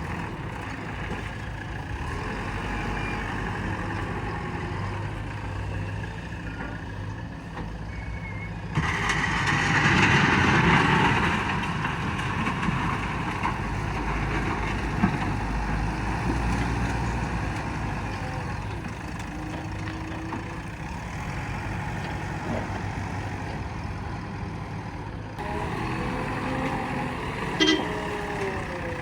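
Heavy diesel machinery running steadily, a backhoe loader working alongside dump trucks, with a louder, noisier stretch from about nine to twelve seconds in and a brief sharp sound near the end.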